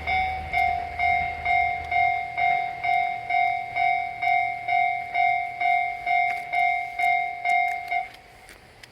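Japanese railway level-crossing warning bell ringing 'kan-kan' with an even clang about twice a second, then stopping about eight seconds in.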